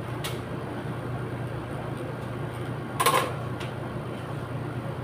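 Jeans being handled during ironing over a steady low room hum: a light click just after the start, then a short, louder rustling snap of denim about three seconds in as the jeans are lifted and shaken out, with a small click right after.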